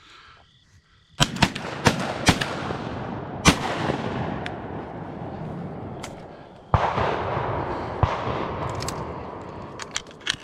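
Shotgun shots fired at ducks, in two bursts: several quick shots starting about a second in, then more about seven seconds in. Each burst leaves a long rumbling echo that slowly fades.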